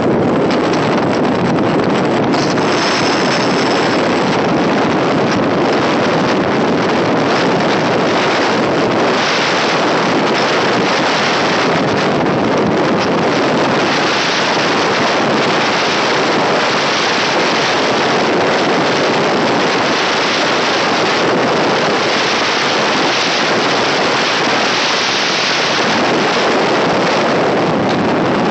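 Loud steady wind rush over the microphone mixed with the running noise of an electric multiple unit local train moving at speed, recorded out of the coach's open window. A brief high-pitched tone sounds about two seconds in.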